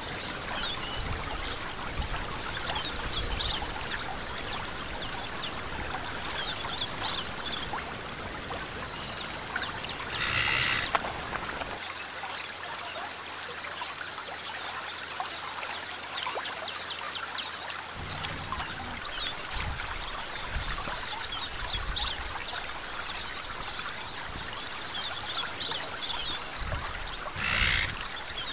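Bird calls: short, very high, rapidly pulsed chirping trills, repeated about every two and a half seconds for the first dozen seconds and once more near the end, over a steady outdoor hiss of water.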